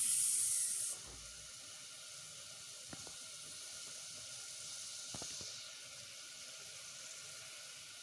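Leftover water droplets sizzling and hissing as they evaporate in a hot, empty stainless steel pot over a gas flame. A louder burst of hiss comes in the first second, then a steady faint hiss with two light clicks.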